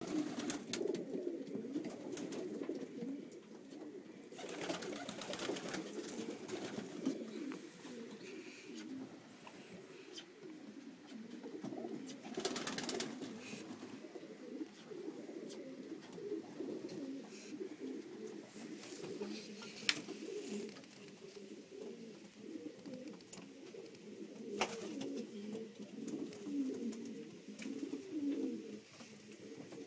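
Many racing pigeons cooing together in a steady, overlapping low burble, with a few bursts of wing flapping.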